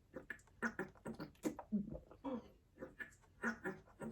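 Woman sobbing and whimpering in short, quick gasps, several a second, crying from the burn of very spicy noodles.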